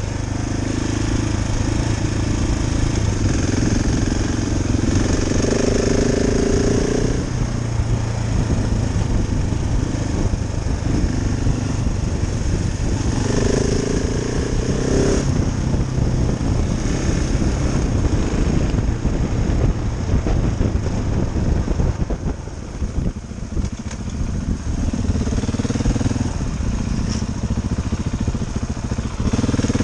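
Motorcycle engine running under way on a dirt road, its revs rising and falling with throttle and gear changes, with wind and road rumble. It eases off briefly in the second half.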